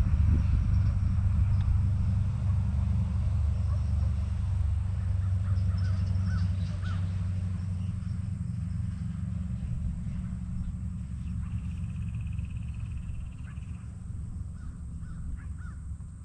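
A steady low rumble that slowly fades, with a few short bird calls above it.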